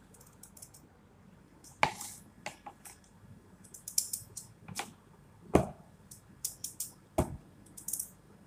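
Peeled potato being cut into chunks by hand with a knife over a plastic basin: irregular small clicks and scrapes of the blade, with several sharper knocks as pieces drop into the basin.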